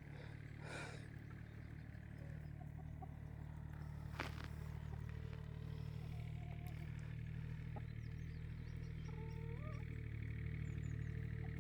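Free-range chickens clucking faintly, with a few short calls that rise in pitch near the end, over a low steady hum and a single faint click about four seconds in.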